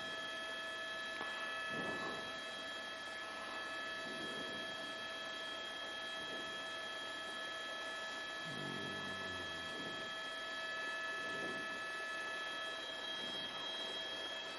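Steady electrical hum and whine made of several constant high tones over faint hiss, with faint brief murmurs under it, the clearest about nine seconds in.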